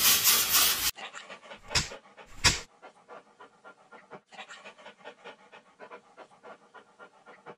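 A German Shepherd-type dog panting in quiet, rapid, even breaths. Two short, louder sounds come about two seconds in. The first second is a loud, noisy sound that cuts off abruptly.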